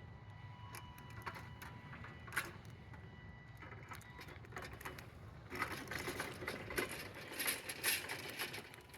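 Faint whir and rattling of a small electric robot lawn mower driving with a hammock frame and a person aboard, with scattered clicks that get busier from about halfway through.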